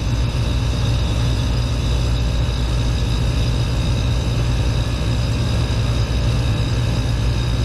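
AAON rooftop HVAC unit running steadily, its compressor and condenser fans giving a loud, even, low hum with faint steady high tones. The compressor stage that is running is low on Freon.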